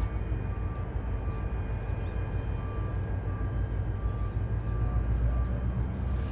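Diesel locomotives idling with a steady low rumble that swells a little about five seconds in, and a faint beeping tone that comes and goes.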